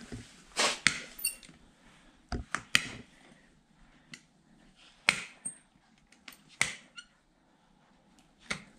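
Hoof nippers cutting through a horse's hoof wall: about ten sharp snaps at irregular intervals as the overgrown hoof is trimmed.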